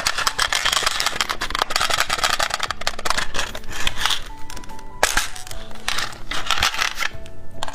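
Packaging crackling and crinkling in quick, dense clicks as a toy candy package is unwrapped by hand, over background music.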